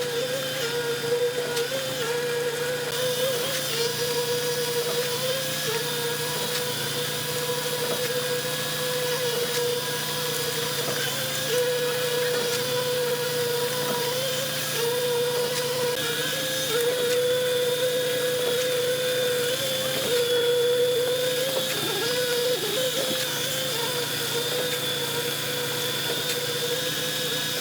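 Machinery running steadily, with a constant whine that wobbles slightly in pitch over a rough mechanical noise.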